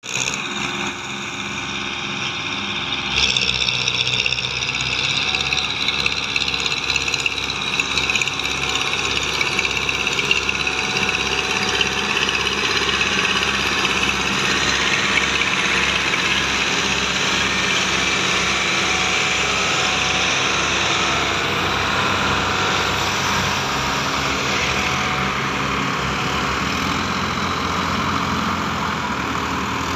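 Diesel farm tractor engines running steadily, with a regular low engine beat.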